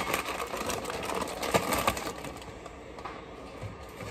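Plastic vegetable packaging rustling and crinkling as bags are handled, with small knocks of packages set down on a kitchen counter. It is busiest in the first couple of seconds, with the sharpest knock just past the middle of that stretch, then quieter.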